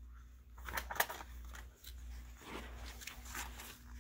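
Faint rustling and light clicks of paper being handled: a Lego instruction booklet and sticker sheet being picked up and opened, with a sharper click about a second in. A steady low hum runs underneath.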